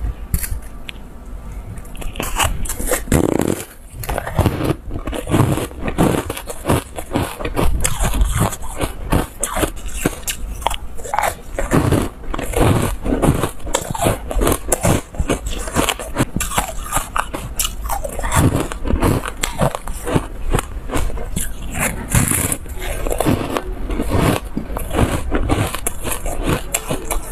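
Close-miked biting and chewing of pieces of yellow foam ice: a continuous stream of irregular crunches.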